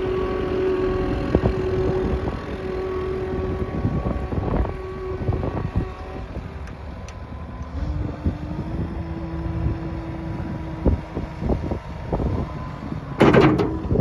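Kubota SSV75 skid steer's diesel engine running, with wind buffeting the microphone. A steady whine changes pitch about eight seconds in, thumps come throughout, and there is one loud clank near the end.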